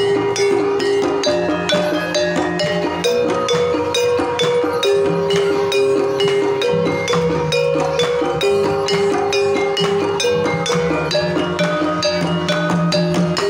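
Javanese gamelan playing a Banyumasan tayub piece. Quick, even strokes on wooden keys and bronze gong-pots sound over ringing held notes, and kendang hand drums drive the rhythm.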